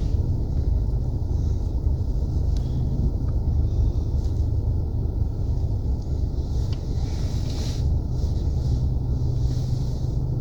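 Car engine running and a steady low rumble, heard from inside the cabin while the car manoeuvres at low speed.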